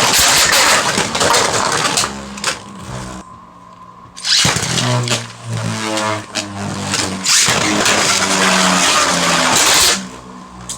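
Beyblade Burst tops spinning and colliding in a plastic stadium: a loud whirring, scraping rattle with a steady hum under it. It drops off briefly about three seconds in, then comes back just as loud.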